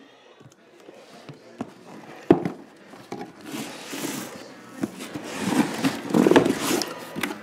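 Cardboard amplifier box handled and opened on a carpeted floor: a few sharp knocks as it is set down and turned, then a longer stretch of cardboard scraping and rustling as the lid comes off.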